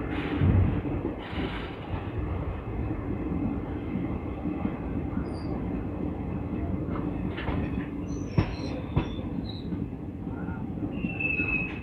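Express train coaches running on the track at speed, heard from alongside the coach: a steady rumble with wheel clicks over the rails. Two sharp knocks come a little past halfway, and a brief high-pitched wheel squeal near the end.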